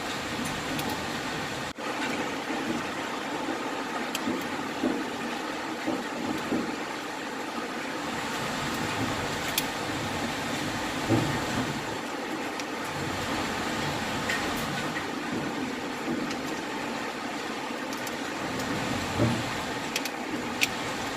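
Hailstorm: a steady hiss of falling hail and rain, dotted with scattered sharp clicks of individual hailstones striking hard surfaces.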